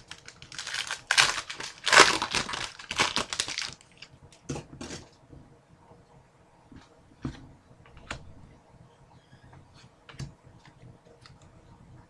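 Trading-card pack wrapper crinkling and being torn or crumpled for a few seconds, followed by scattered light clicks of cards being handled.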